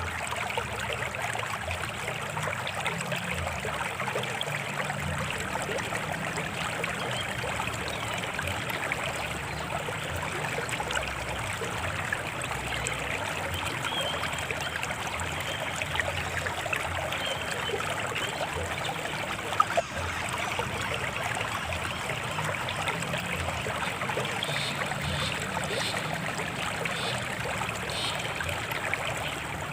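Small stream flowing and trickling steadily over stones, with a few faint bird chirps and a single sharp click about twenty seconds in.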